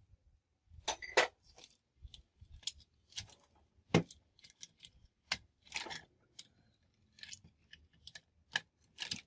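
Ratchet wrench and socket working the bolts of a rusty truck air compressor's cover plate: irregular metallic clicks and clacks with short scrapes, the sharpest clacks about a second in, near four seconds and near the end.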